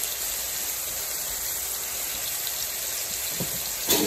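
Steak, bell peppers and onions sizzling steadily in a frying pan, with one short louder noise near the end.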